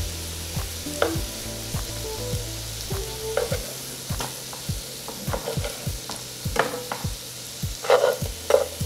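Small boiled potatoes sizzling in a nonstick pan of melted butter, oil and sugar while a spatula turns them, its scrapes and knocks on the pan coming every second or two and loudest near the end.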